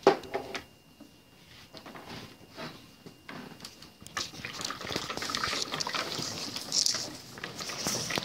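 A sharp knock at the start, then a few light clicks; from about halfway, a hand whisk stirring thick cold-process soap batter in a plastic bucket, a continuous wet swishing.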